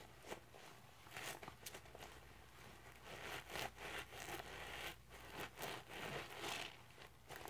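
Rubber-gloved hands squeezing and kneading a Scrub Daddy sponge in a bucket of thick cleanser suds: wet squishing and crackling foam in a run of short bursts, loudest about halfway through and again near the end.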